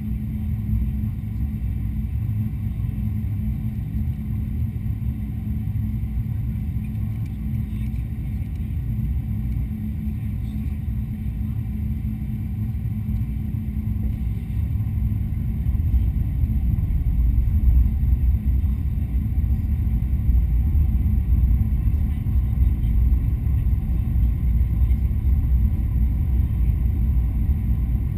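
Cabin noise inside a Boeing 777-200 airliner on its descent: a steady low rumble of jet engines and airflow with a constant hum, growing louder about halfway through.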